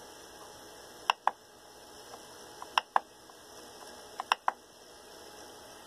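Rotary encoder knob on a RepRapDiscount 3D printer LCD controller being pressed to pick menu items: three pairs of sharp clicks, each pair a press and release, about a second and a half apart, with a few fainter ticks between them.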